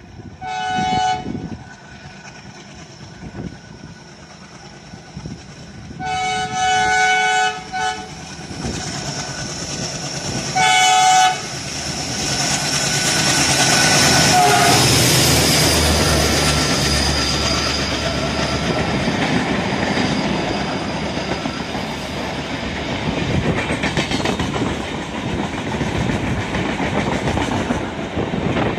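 A WDM-3A diesel locomotive (ALCO 16-cylinder engine) approaching at speed and sounding its horn three times, the middle blast longest. Its engine then passes at full throttle, and the express coaches follow with a steady clickety-clack of wheels over the rail joints.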